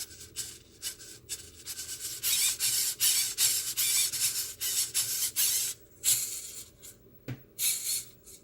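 Irregular rubbing and scraping swishes, a dense run of them from about two to six seconds in, with quieter scrapes before and after.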